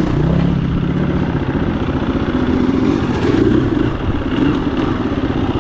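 KTM 350 EXC-F dirt bike's single-cylinder four-stroke engine running under way, its revs rising around the middle and easing off again with the throttle.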